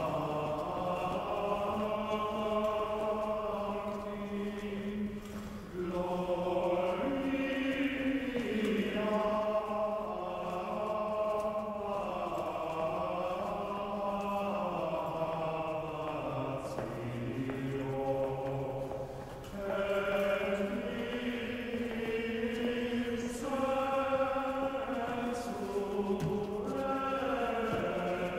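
A choir chanting in long, slowly moving held notes, like a church chant. It drops away briefly about five and a half seconds in and again about nineteen seconds in.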